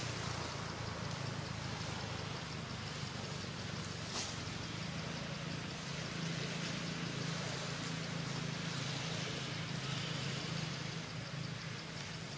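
Steady low engine hum over an even hiss of outdoor background noise, with two brief sharp clicks, one at the start and one about four seconds in.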